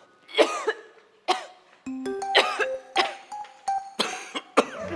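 A person coughing over and over, a string of about seven harsh coughs. From about two seconds in, a short run of musical notes plays under them.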